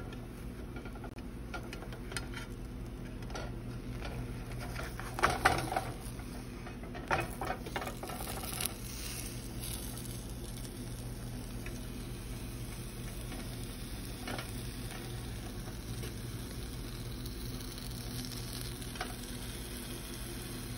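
Banana and glutinous rice flour batter sizzling in oil in a nonstick frying pan over a steady low hum. A spatula scrapes and knocks against the pan in a cluster of clicks about five to nine seconds in, loudest near five seconds, with a few lighter scrapes later.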